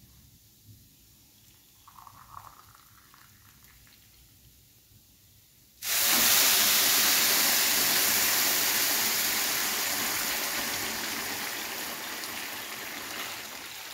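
Water poured into a hot nonstick wok of rice toasted in ghee: about six seconds in, a loud hiss and sizzle starts abruptly as the water hits the hot pan, then slowly dies down as the pan bubbles.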